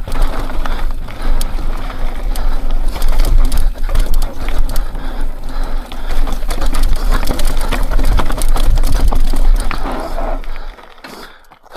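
Mountain bike rattling and clattering over rough rock on a fast descent, with many sharp knocks from the tyres, chain and suspension and a low rumble of wind on the microphone; it stops abruptly near the end. The hard knocks include the front fork and rear shock bottoming out, run with too much air pressure.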